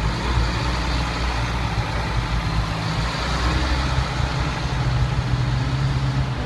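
Military trucks' engines running as the convoy moves past, a steady low engine hum that swells slightly about two-thirds of the way through.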